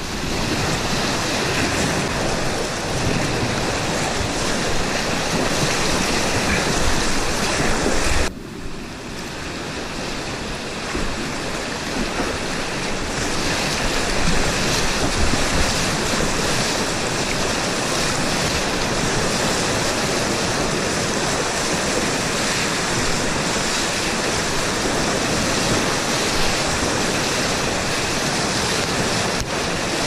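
Steady, loud rushing of a flooded whitewater river churning around a kayak. The sound drops suddenly about eight seconds in and builds back up.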